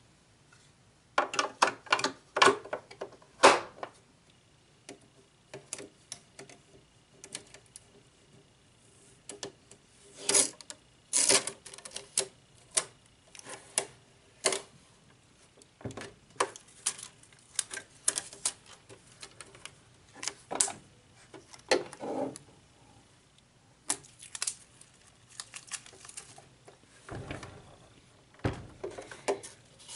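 Irregular clicks, taps and knocks of a Brother LX3817 sewing machine's plastic body and parts being handled and moved about, with a couple of deeper thumps near the end as the machine is tipped over on its side. The machine is not running.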